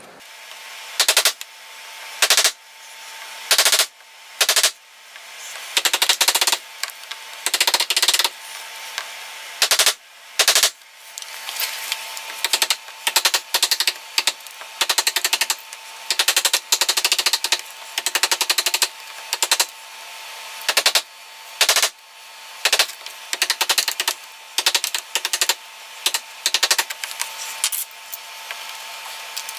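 Claw hammer striking a wood chisel, cutting a hinge mortise into a wooden door jamb so the hinge can sit flush. The sharp taps come as single blows and quick runs of several strikes, with short pauses between.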